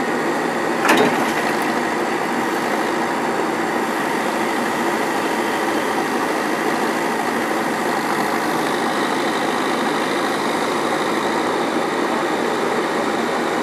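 Terex backhoe loader's diesel engine running steadily under light load, with one sharp metallic clank about a second in.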